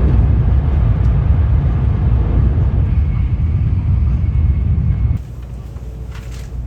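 Steady low vehicle rumble that drops sharply to a quieter rumble about five seconds in.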